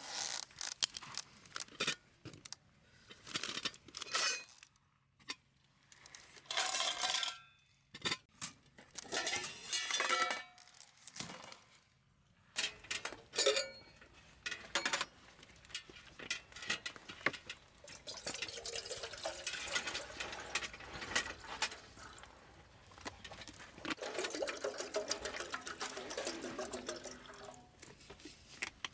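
Camp cooking and dish handling: utensils and cookware clinking and knocking in irregular bursts. From about 18 seconds in, a steadier hiss runs under the clinks.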